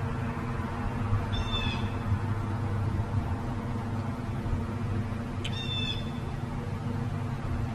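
Two short, high-pitched animal calls, each about half a second long and falling slightly, the first about a second in and the second about four seconds later, over a steady low hum.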